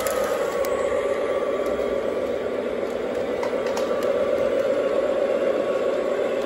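O gauge model train, a Santa Fe diesel locomotive, running on three-rail track: a steady hum of wheels and motor with a few light clicks.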